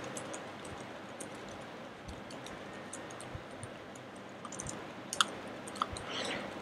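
Typing on a computer keyboard: faint, irregular keystroke clicks, with a few sharper clicks near the end.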